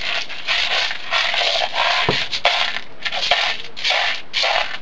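Plastic airsoft BBs rattling and rolling around inside a plastic pot as it is swirled by hand, in repeated surges about twice a second.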